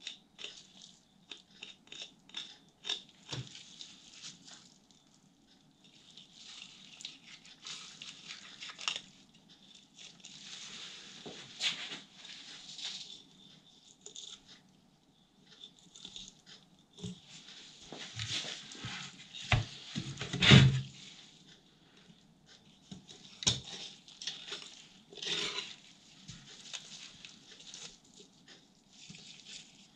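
Fillet knife cutting a corvina's fillet away from its bones on a wooden cutting board: irregular crackling scrapes and small clicks as the blade works along the frame, with one louder knock about two-thirds of the way through.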